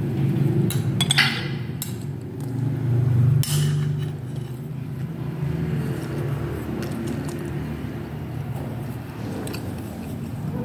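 A metal spoon clinking against a ceramic plate of rice a few times, with the sharpest clinks about a second in and again after about three and a half seconds, over a steady low background hum.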